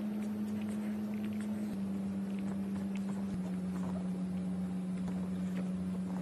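Pug licking and chewing at a cupcake on a stone countertop, scattered small wet clicks and smacks, over a steady low hum that drops slightly in pitch twice.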